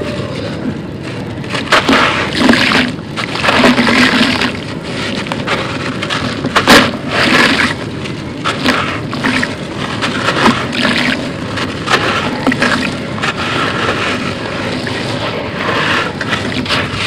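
Hands crumbling and pouring dry crushed concrete: repeated gritty crunching and pouring rushes, each lasting about a second, with one sharper crunch a little under seven seconds in.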